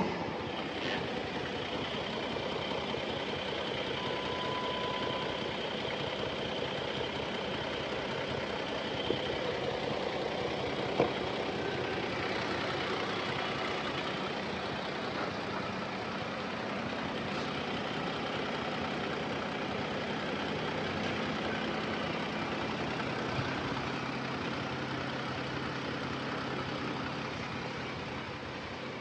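2019 Toyota Camry engine idling steadily, with a sharp click right at the start and two lighter clicks about 9 and 11 seconds in.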